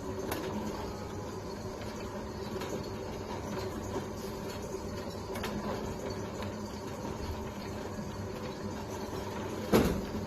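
Herbal pill-making machine running with a steady motor hum and scattered light ticks, with one sharp thump near the end.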